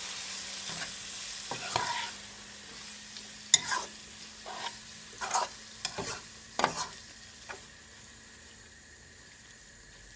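Spoon stirring and scraping seasoned chicken filling in a cooking pot, with about eight separate knocks and scrapes against the pot. A sizzle from the pot fades over the first few seconds, just after water has been added to the filling.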